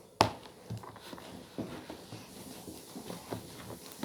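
Slime being squeezed and stretched by hand: a sharp pop about a quarter second in, then small irregular sticky clicks and squelches.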